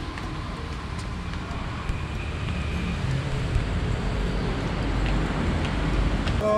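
Low rumbling background noise that grows louder and then cuts off abruptly near the end.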